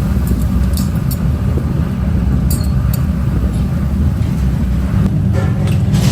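Steady, loud low rumble of factory machinery, with a few light clicks and clinks about a second in, around three seconds in and near the end.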